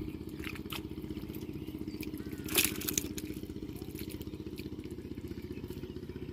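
A small engine-driven water pump runs steadily with an even, fast chug while it drains the pond. Hands grab in the wet mud over it with short squelches and splashes, the loudest about two and a half seconds in.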